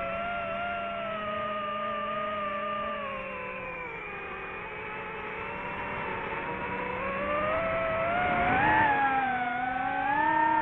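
DJI FPV drone's motors and propellers whining in flight, the pitch sinking about halfway through as the throttle comes off, then climbing again near the end as it powers up.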